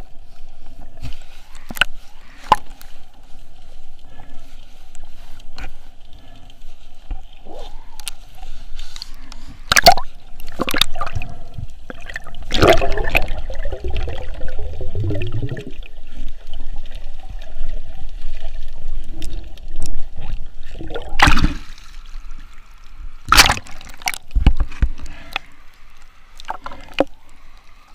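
Water sloshing and gurgling around a snorkeler's camera, with scattered clicks and several louder splashing bursts as he swims and dives.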